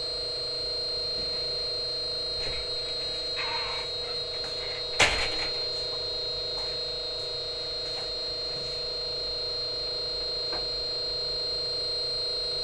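Steady electrical hum with a high, even whine from an inverter air-conditioner test rig (control board, transformer and rotary compressor). One sharp click comes about five seconds in.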